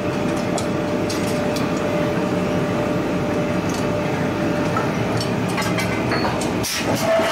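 Steady mechanical drone of forge-shop machinery, with light metallic clinks of tongs and tools as a punch is set on a red-hot flange forging, and a louder clank near the end.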